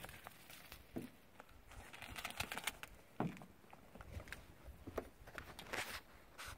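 Faint, scattered scuffs and clicks of small dogs playing with a plastic frisbee on gravel and grass, with a few slightly louder scuffs about a second in, around three seconds and near the end.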